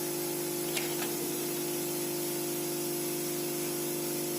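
Hot-air phone-screen separator machine running just after start-up: a steady blowing hiss from its air flow over a low, even hum, with a couple of faint ticks about a second in.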